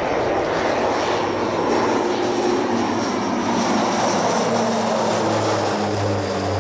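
Fuji T-7 single-turboprop trainers flying past, a steady mix of propeller and turbine noise. From about two seconds in, a low propeller hum grows louder and steps down in pitch toward the end as the aircraft pass.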